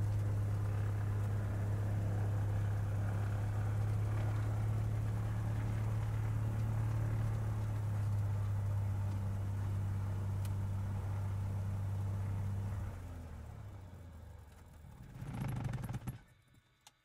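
Cessna 182's newly rebuilt piston engine, on break-in, running steadily at low taxi power as heard from the cockpit. About 13 seconds in it winds down as it is shut off, with a short louder sputter near the end before it stops and falls silent.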